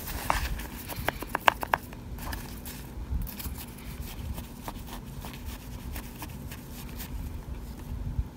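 A plastic spoon scooping and crushing through a pan of oven-baked cornstarch chunks. A quick run of sharp crunchy crackles comes about a second in, followed by scattered softer crunches and scrapes.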